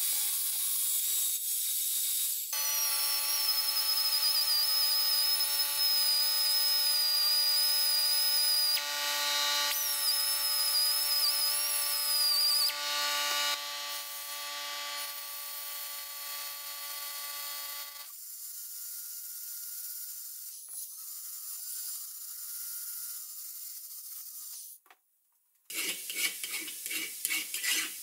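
Small cordless power tools, a rotary abrasive tool and a powered belt file, sanding cast-iron vise parts: a steady motor whine with wavering high whistles as the abrasive rubs the metal, then a quieter stretch. Near the end, after a brief break, rapid back-and-forth strokes of a hand file on cast iron.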